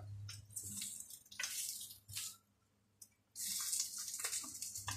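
Vegetables sizzling in a hot frying pan on a gas burner as they are stirred, a high hiss that comes in patches and cuts out briefly a little past halfway.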